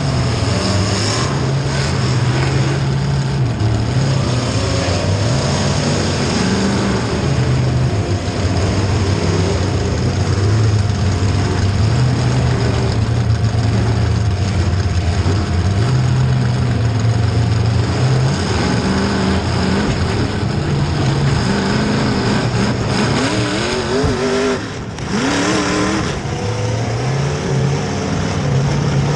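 Demolition derby cars' engines running and revving hard, the pitch climbing and falling again and again over a dense mechanical din, with a brief drop about 25 seconds in.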